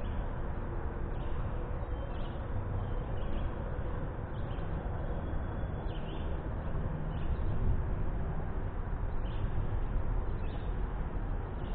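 Steady outdoor background noise, heaviest in the low end, with faint short bird chirps every second or two.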